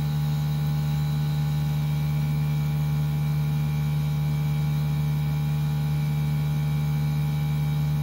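Mini-split heat pump outdoor unit running under load at about 7.6 amps, its compressor giving a steady low hum with fainter steady higher tones above it.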